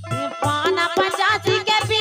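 Live traditional Indian folk song: a woman singing over a harmonium, with regular hand-drum strokes keeping the beat.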